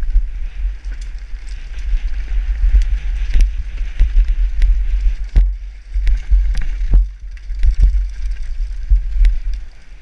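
Wind buffeting a helmet-mounted microphone on a fast mountain bike descent, a heavy low rumble, over the hiss of tyres on a dirt trail and frequent sharp knocks and rattles from the bike over bumps and roots.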